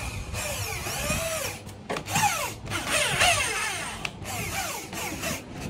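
Electric drill driving a screw into a plywood shelf board, run in several short bursts with brief pauses, its motor whine rising and falling in pitch as the trigger is squeezed and eased.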